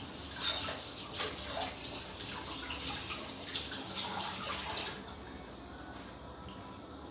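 Close-up crunching and wet crackling of someone chewing crisp lettuce leaves coated in condensed milk, stopping about five seconds in.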